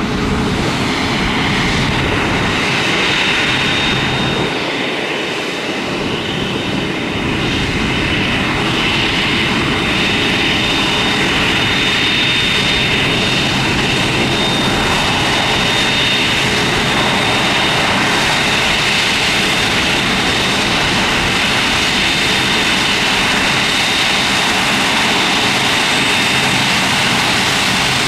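Boeing 747-8F's four GEnx turbofans running at taxi power: a steady jet rumble and hiss with a thin, high, steady whine on top.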